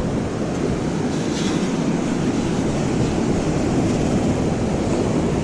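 Steady rushing noise of surf and wind on the microphone at the beach.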